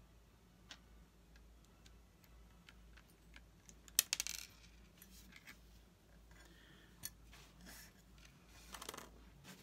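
Small RC disc-brake caliper and disc parts clicking and clinking as they are handled and pushed into place: a sharp click about four seconds in followed by a brief rattle, a few light ticks, and a quick run of clicks near the end.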